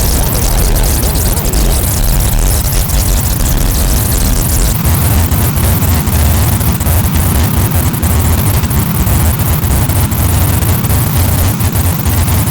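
Circuit-bent toys, a Mighty Megasaur dragon and a Black & Decker toy chainsaw, putting out loud distorted electronic noise: a dense low buzz under crackling glitches. The sound shifts about five seconds in, turning more pulsing and crackly.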